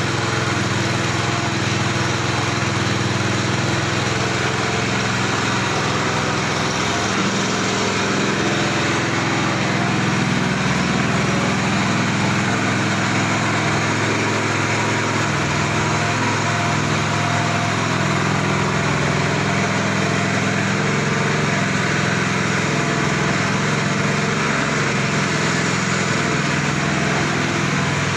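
A small engine running steadily at a constant speed, its pitch shifting slightly a few times.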